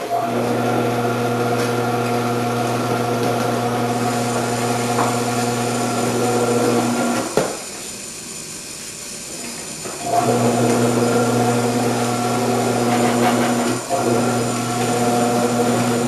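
Electric vegetable-cutter machine's motor running with a steady hum while its grating disc shreds cheddar. It cuts out with a click about seven seconds in, then starts up again around ten seconds in, with a brief dip near the end.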